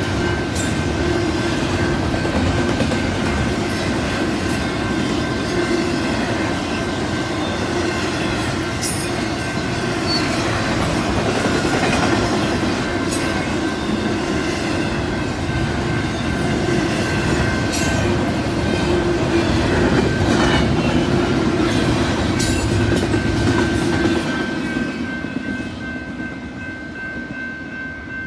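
Union Pacific double-stack intermodal freight cars rolling past: a steady rumble and clatter of steel wheels on rail, with scattered sharp clacks and a thin steady high tone running through it. The sound eases off over the last few seconds as the end of the train moves away.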